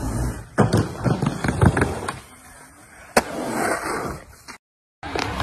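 Skateboard deck and wheels knocking and clattering on wood and concrete: a run of sharp knocks in the first two seconds, then a single sharp crack a little after three seconds.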